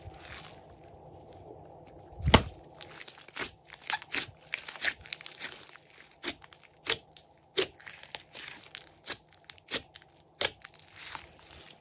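Hands squeezing and kneading a large mound of glossy slime, making irregular sticky pops and crackles as trapped air bursts out. The loudest pop comes about two seconds in, after a quieter start.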